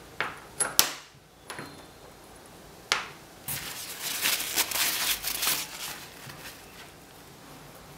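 Small hard objects being handled on a plexiglass sheet: a few separate sharp clicks and taps as the cut glass test tube is handled and set down, then about two seconds of dense crackly clicking and rustling from hands working with the tools.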